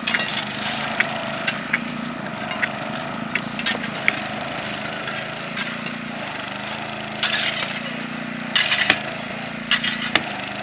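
Sledgehammer blows ringing on a steel chisel held against a freshly thermite-welded rail joint, knocking off the excess weld metal: a dozen or so sharp metal strikes at uneven intervals, with a cluster in the last few seconds. A small petrol engine runs steadily underneath.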